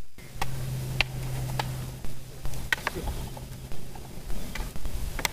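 Wooden sticks clacking together in a mock sword fight: a dozen or so sharp, irregular knocks. A steady low hum runs under the first half.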